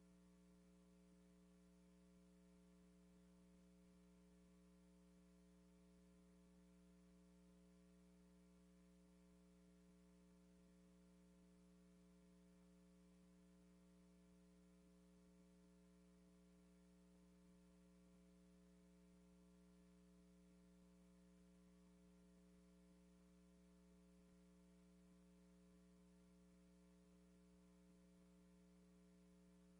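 Near silence: a faint, steady electrical hum with light hiss, unchanging throughout.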